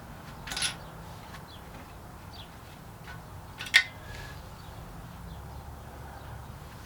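Workshop handling noises: a brief scrape about half a second in, then a single sharp clink just before the four-second mark, over a low steady hum.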